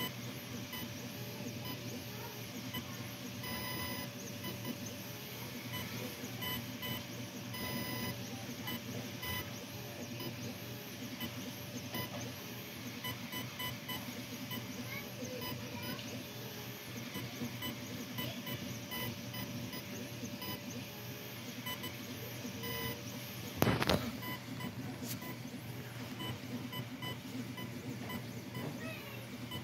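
Diode laser engraver's stepper motors whirring and buzzing in quick tones as the laser head rasters back and forth across the wood, over a steady hum. There is one brief louder noise late on.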